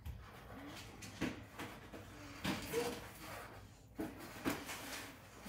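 A felt-tip marker rubbing and scratching on paper as a spiral is coloured in, with several short, louder strokes.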